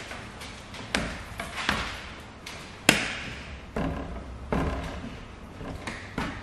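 Hand squeegee worked over wet paint protection film on a truck bumper: a string of about six sharp taps, some followed by short scraping swipes, the loudest about three seconds in.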